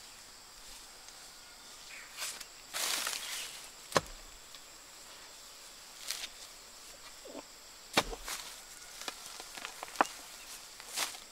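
A blade chopping at a banana plant: three sharp chops a few seconds apart, with rustling of leaves and grass between them.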